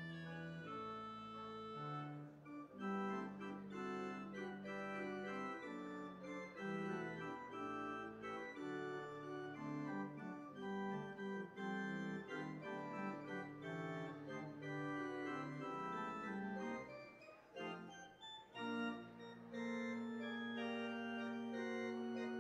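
Organ music played before a church service: held chords that change every second or so, with a brief break about seventeen seconds in before a long sustained chord.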